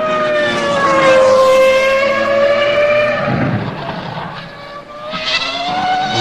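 Williams BMW Formula 1 car's 3-litre V10 engine running at high revs, a high, piercing note that eases slightly in pitch, drops lower and quieter from about three and a half to five seconds in, then climbs again near the end as the car accelerates.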